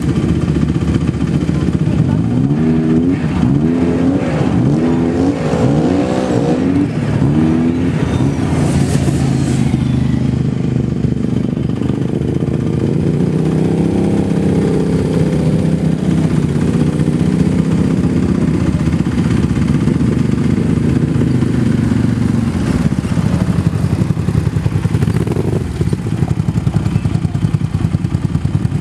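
ATV engine running under throttle, revving up and easing off about five times in quick succession a few seconds in, then running more steadily, with one slower rise and fall in pitch midway.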